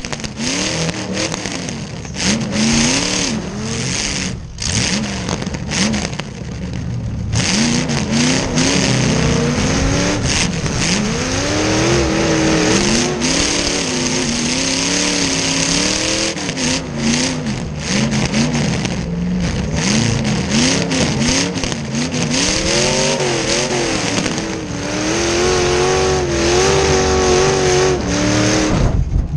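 V8 demolition derby car's engine, heard from cameras mounted on the car, revving up and falling back again and again as it drives, with frequent knocks and rattles.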